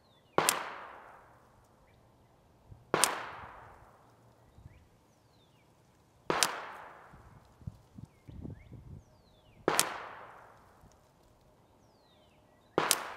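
Five single shots from a Ruger 22/45 Lite .22 pistol firing Federal Gold Medal Match rimfire rounds, spaced about three seconds apart, each a sharp crack trailing off in a short echo.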